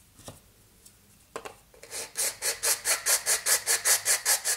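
Flat metal hand file rasping across a 3D-printed plastic part in quick back-and-forth strokes, about six a second, beginning about two seconds in after one short scrape. The filing is done to make tight-tolerance printed assembly pieces fit together.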